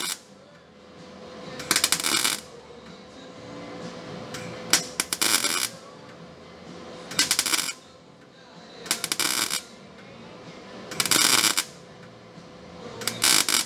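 MIG welder laying short tack welds on sheet steel: six crackling bursts, each under a second, about two seconds apart.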